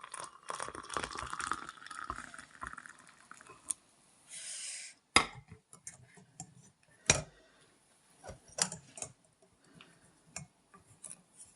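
Hot infusion poured from a pot into a cup, a running trickle for about the first three seconds and a short hiss a little after four seconds in. Then several sharp clinks and knocks of the pot and cup being handled.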